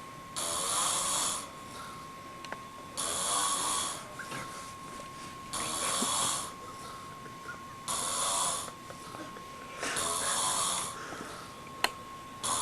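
A man snoring in his sleep, a rasping snore about every two and a half seconds. A faint steady high tone runs underneath, and there is a single sharp click near the end.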